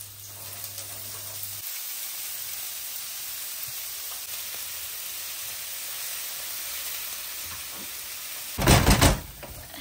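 Shredded leeks, carrot and onion sizzling in hot oil on a flat griddle tray over a gas flame, a steady hiss. Near the end comes a short burst of loud knocks.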